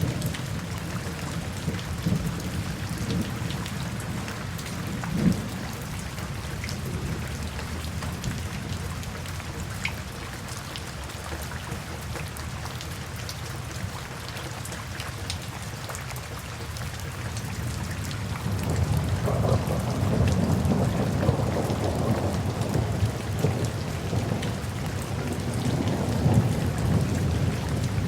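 Steady rain with scattered drop ticks. About two-thirds of the way through, a low rumble of thunder swells in and rolls on.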